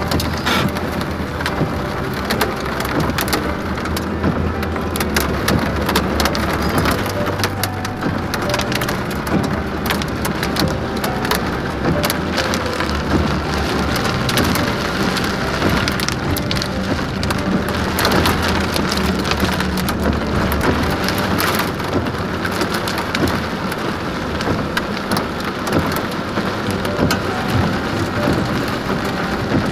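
Heavy rain pelting a car's windshield and roof, heard from inside the moving car as a dense, steady patter of drops over a low steady rumble.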